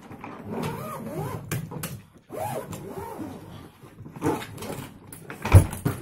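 The zipper of a hard-shell trolley suitcase is drawn shut around the lid in a couple of long pulls, with a few small clicks. Near the end comes one heavy thump as the case is set down upright.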